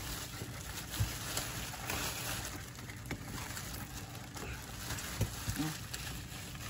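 Plastic bag crinkling and rustling as squid are dropped into it and it is bunched shut, over the steady low hum of a boat engine.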